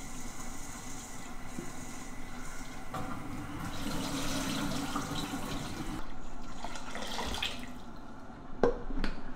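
Water running from a kitchen tap while raw rice is washed in a bowl, with a few sharp knocks near the end.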